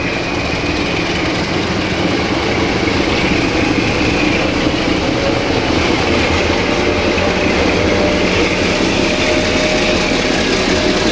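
CFR 060-DA1 (LDE2100) diesel-electric locomotive's Sulzer engine running as it shunts a rake of passenger coaches past. The engine drone is steady, growing louder over the first couple of seconds, with a thin high whine over it.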